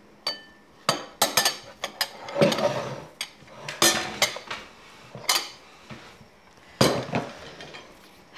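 Ceramic bowls and spoons clinking and knocking as they are stacked into a large glass bowl and cleared from a table. A string of sharp clinks, with a brief ringing tone just after the start and a longer rattle a couple of seconds in.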